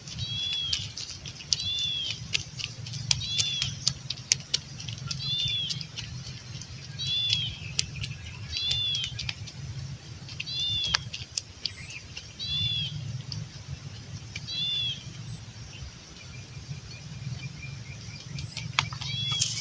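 A bird repeats a short arched chirp every second or two, over soft scraping and clicking from a stick stirring wet, muddy soil.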